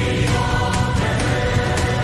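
Background music: a dramatic track with held choir-like tones over a steady, driving beat.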